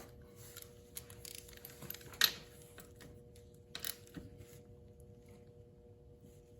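Scattered light clicks and metal taps as the oil drain plug is screwed in and tightened with a 17 mm socket on a ratchet, with one sharper click about two seconds in.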